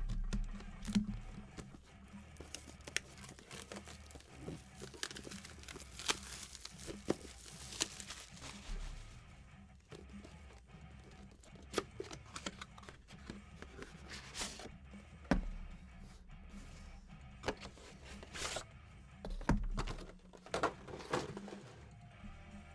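Plastic wrap being cut and torn off sealed trading card boxes, crinkling and rustling, with sharp knocks and taps as the cardboard boxes are handled and set down.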